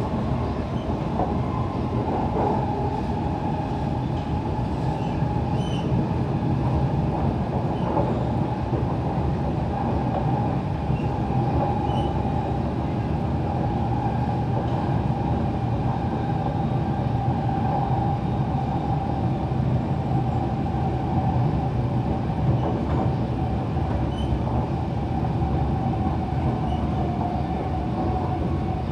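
Siemens C651 MRT train running at speed, heard from inside the carriage by the doors: a steady rumble of wheels and running gear, with a steady whine that sinks slightly in pitch near the end.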